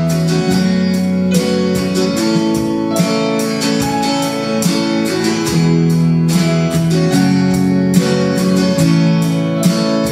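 Worship band playing an instrumental passage between sung lines, with a strummed acoustic guitar carrying sustained chords.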